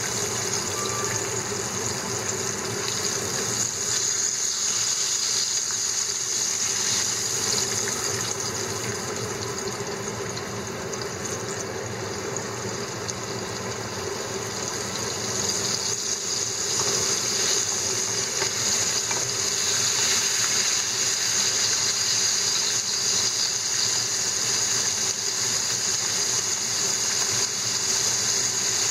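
Flour-coated horse mackerel frying in a pan of hot oil with garlic, ginger and chili: a steady sizzle of bubbling oil, growing a little louder about two-thirds of the way through.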